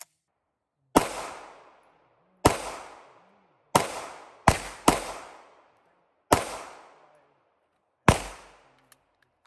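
Seven single shots from a 9mm CZ 75 Shadow pistol, fired one at a time at uneven intervals, with two in quick succession about halfway through. Each shot is followed by a short echoing decay.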